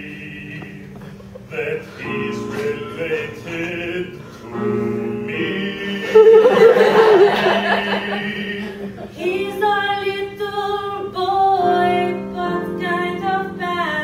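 Voices singing a song with musical backing, holding long notes and stepping between pitches; it swells loudest around the middle.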